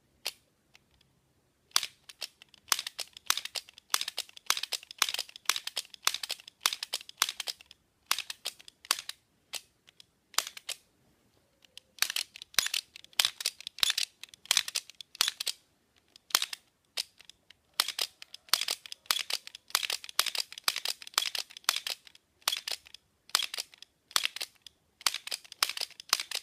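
A LEGO blowback pistol being dry-fired over and over: rapid plastic clicks and clacks as the trigger is pulled and the LEGO slide snaps back and returns. The clicks come in quick clusters with short pauses between them.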